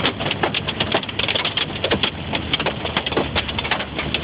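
Hailstones hitting a car's windshield and roof, heard from inside the cabin as a rapid, irregular clatter of many sharp knocks a second. Road and engine noise from the moving car runs underneath.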